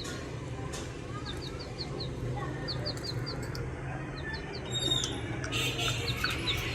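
Budgerigars chirping: many quick, short chirps in little runs, with a busier burst of chatter near the end, over a steady low hum.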